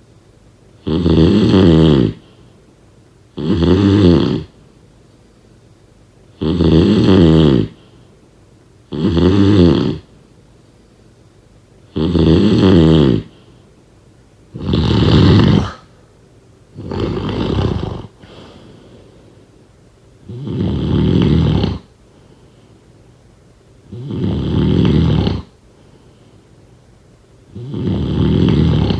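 A sleeper snoring steadily, about ten loud snores, one every two to three seconds. Each snore lasts a little over a second, with quiet breathing gaps between.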